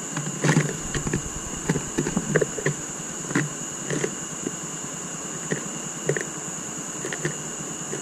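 Blue tits and a great tit landing and moving about inside a wooden feeder full of sunflower seeds: irregular light knocks, taps and flutters of feet, wings and seeds on the wooden floor, busiest in the first half. A steady high-pitched whine runs underneath.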